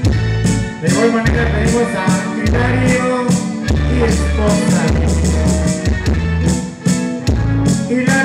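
Loud dance music with a steady beat, heavy bass and a melody line over it.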